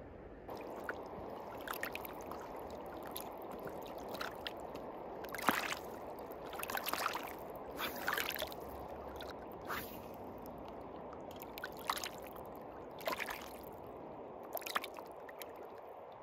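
River water flowing and lapping against the stones of a rocky bank, a steady rush with irregular small splashes and clicks.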